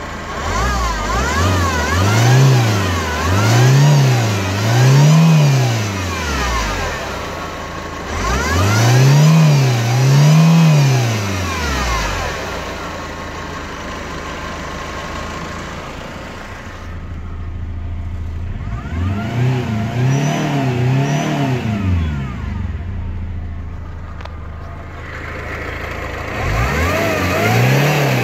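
Peugeot/Citroën 2.0 HDI RHS four-cylinder turbodiesel running, revved repeatedly in quick blips of two or three that rise and fall back. In between it settles to a steady diesel idle.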